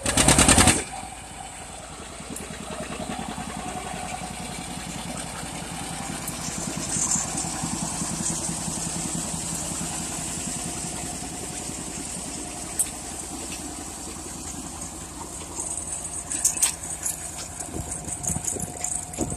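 John Deere 60 tractor's two-cylinder engine running steadily as it pulls a grain binder working through standing grain. The binder's mechanism clatters along with it, with sharper clacks coming more often near the end. A brief loud rush of noise comes in the first second.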